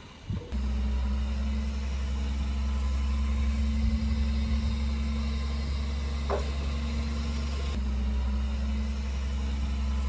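Heavy diesel engine of earthmoving machinery running steadily with a low, even hum that comes in abruptly about half a second in. A short rising squeak sounds about six seconds in.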